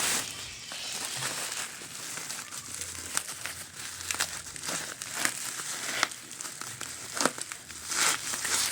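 Head torch packaging being handled, crinkling and rustling, with scattered sharp crackles about once a second.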